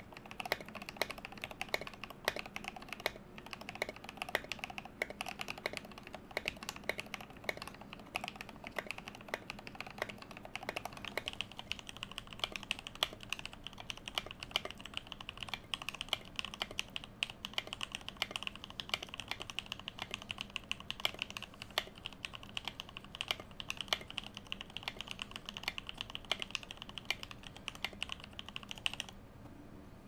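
Fast typing on a Stacked TKL layered-acrylic mechanical keyboard with lubed Gateron Milky Yellow switches: a rapid, continuous run of keystroke clacks that the builder calls deep and thocky. The clicks turn brighter about eleven seconds in and stop about a second before the end.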